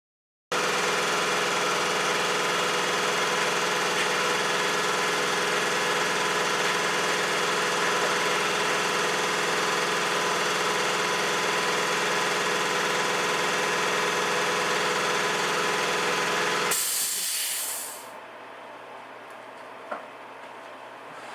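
HVLP spray gun running on compressed air, a loud steady hiss as primer is sprayed, with a brief sharper hiss near the end before it stops. A quiet background and a single small click follow.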